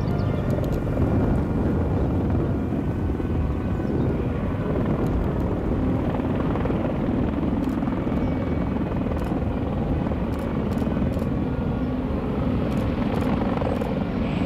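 Formation of four Royal Navy helicopters flying over with a Fairey Swordfish biplane: a steady, dense rotor and engine noise.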